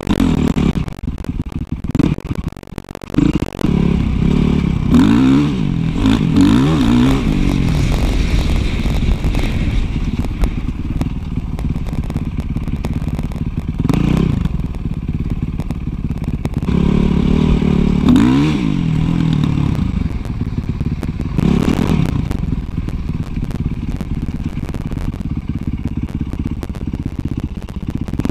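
Dirt bike engine running hard while ridden, the pitch climbing and falling several times as the rider works the throttle, heard from the rider's helmet camera with a steady rush of wind and road noise underneath.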